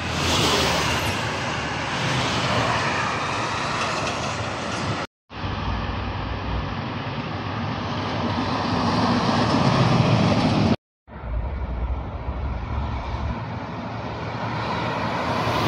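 Heavy tractor-trailer trucks passing at highway speed: a steady rush of tyre and engine noise that swells as a truck draws near. The sound cuts out abruptly twice, about five and eleven seconds in.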